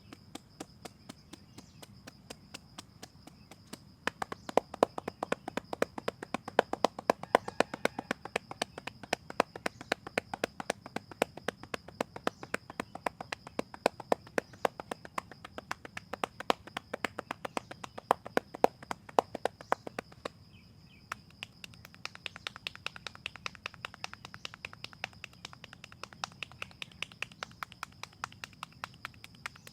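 Hands tapping and slapping rhythmically on a person's head during a head massage, a fast run of sharp strikes that starts a few seconds in, pauses briefly past the middle and resumes lighter and higher-pitched.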